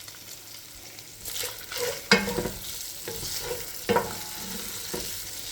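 Ground sausage sizzling as it browns in a pot, stirred and scraped with a utensil, with two sharp knocks against the pot about two and four seconds in.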